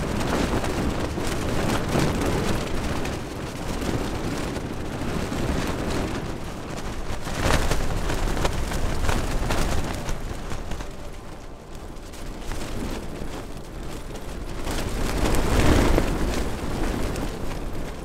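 Wind gusting hard against the microphone: a loud rushing rumble that swells and fades, with the strongest gusts about eight seconds in and again near the end.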